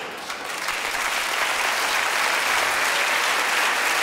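Studio audience applauding, the clapping swelling in over the first second and then holding steady.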